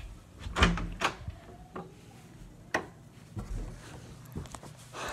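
Handling noise of a phone camera being gripped and moved: a string of knocks and rubbing clicks, the loudest a thump about half a second in.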